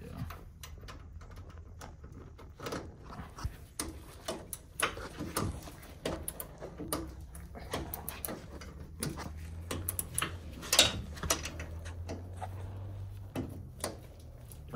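Irregular clicks and light metallic knocks of hand tools and suspension parts being handled and tightened at a car's front wheel hub during a coilover install, over a steady low hum.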